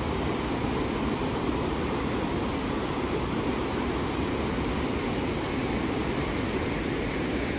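The Bow River pouring over Bow Falls: a steady rush of whitewater with a deep rumble underneath.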